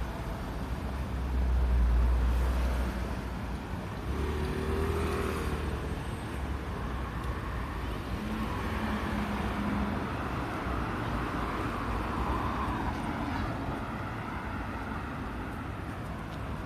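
Road traffic on a city street, cars passing, under a steady outdoor hum. A deeper rumble swells about two seconds in.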